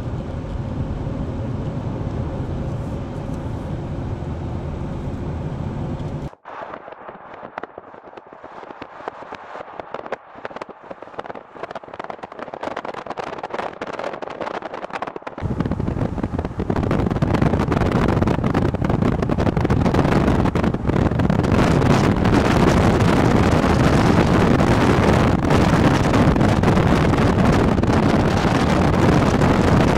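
Car driving on a winding highway: steady road and engine noise inside the cabin, then, after a sudden cut, a quieter crackling stretch. From about halfway through, loud wind noise rushes over the microphone as the car moves along.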